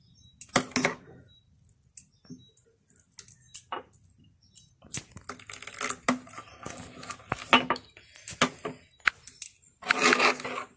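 Metal spoon stirring thick semolina dosa batter in a bowl, clinking and scraping against the bowl's sides in irregular strokes.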